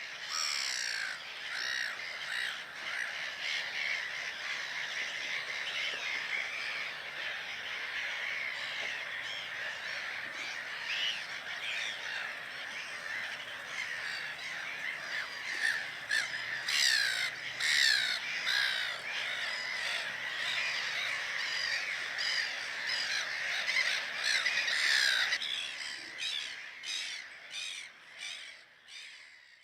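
A large flock of birds calling over one another in a dense, continuous chorus of short cawing calls. It thins out about 25 seconds in and fades away near the end.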